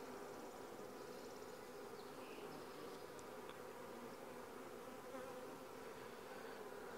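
Faint, steady buzzing of honey bees swarming over a lifted brood frame and the opened nuc box.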